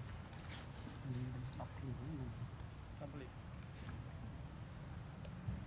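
Insects droning steadily at one high pitch, with a few faint clicks.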